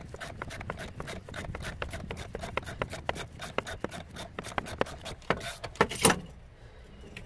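A ratchet wrench clicking rapidly as it turns the forcing screw of a pulley puller, pressing a power steering pump pulley off its shaft. A louder clack comes about six seconds in, and then the clicking stops.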